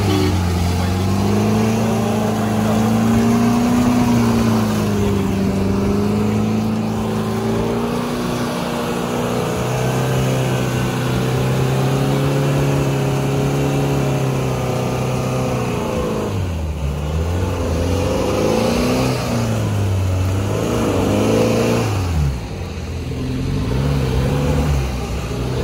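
4x4 engines running under load during a winch recovery of a vehicle stuck in sand, the engine note rising and falling slowly. In the last third it is revved up and down sharply several times.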